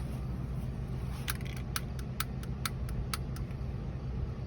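Air compressor running with a steady low hum while inflating a dirt bike tyre to seat its bead. From about a second in, irregular sharp clicks sound over it.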